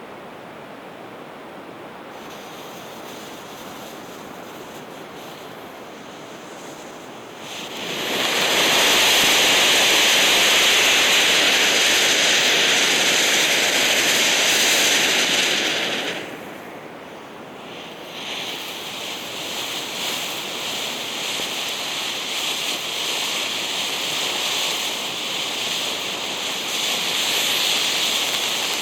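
Firework fountain hissing as it sprays sparks. A softer steady hiss grows suddenly loud several seconds in, drops back briefly past the middle, then builds up again.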